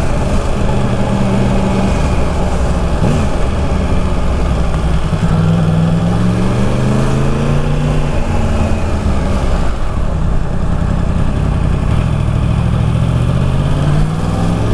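Yamaha MT-10 crossplane inline-four with an Akrapovic exhaust, ridden at low speed. Its note rises under throttle about five seconds in, drops back a few seconds later, then climbs again near the end.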